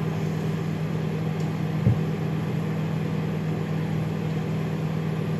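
A steady low mechanical hum, with one short knock about two seconds in.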